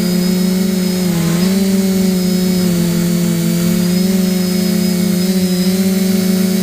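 A motor running steadily with a constant hum and a faint high whine, its pitch dipping briefly about a second in before settling back.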